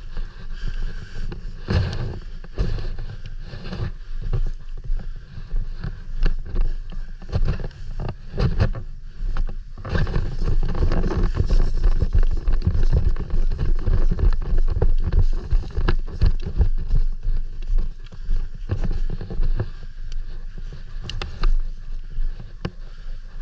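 Movement noise on a body-worn camera: irregular knocks, rustles and footsteps with low wind rumble on the microphone.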